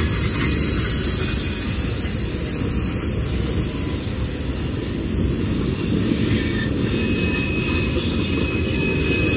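Freight train of covered hopper cars rolling past, a steady rumble of steel wheels on the rails. A thin, high wheel squeal comes in near the end.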